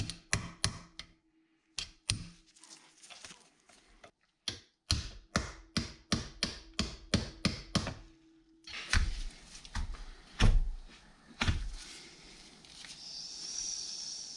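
Hammer striking a punch and the steel CV joint cap on a car driveshaft to knock the cap loose: a few sharp metallic taps, then a fast even run of about five taps a second over a faint steady ring. About nine seconds in come four heavier, deeper knocks, followed by faint handling noise.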